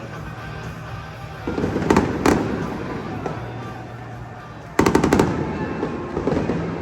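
Fireworks going off: two sharp bangs about two seconds in, then a quick rattle of several bangs near the end, over background music with steady low notes.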